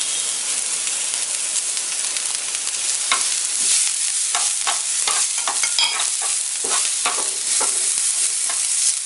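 Chopped onions and curry leaves sizzling in oil on a flat dosa griddle. From about three seconds in, a steel spatula scrapes and stirs them in quick, irregular strokes.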